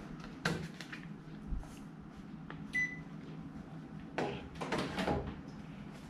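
Wall-mounted room air conditioner giving one short electronic beep as it takes a command from its remote, among scattered clicks and knocks of handling.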